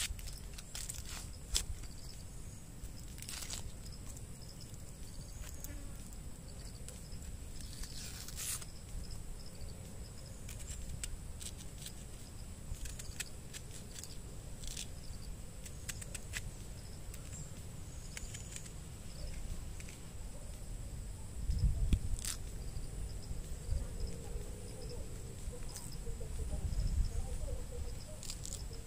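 Insects trilling steadily at a high pitch, with scattered sharp clicks and crackles. Two louder low rumbles come about three quarters of the way through and again near the end.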